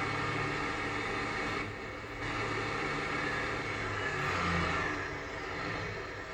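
Tractor engine running in gear, with a brief dip in level about two seconds in and a change in engine note around four to five seconds in.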